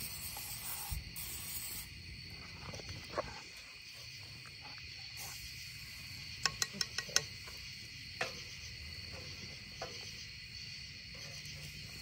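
A steady, high chirring chorus of crickets. A quick run of about five sharp clicks comes about six and a half seconds in, and one more click a second later.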